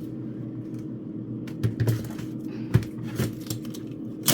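Boxes and packages of frozen food being set down and shifted about in a freezer: a string of light clicks and knocks, the loudest near the end, over a steady low hum.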